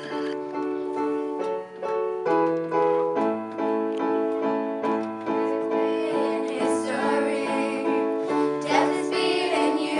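Piano playing a steady chordal introduction to a worship song. Girls' voices join in singing near the end.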